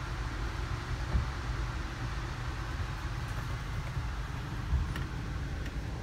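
Steady low rumble of an Amtrak Northeast Regional passenger coach rolling on the rails, heard from inside the car, with two short thumps about a second in and near the end.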